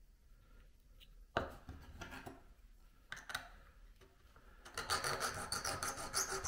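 Small mill file scraping across the freshly sawn end of a model rail held in a wooden jig, deburring the cut. A knock and a few separate strokes come first, then quick, steady back-and-forth filing for the last part.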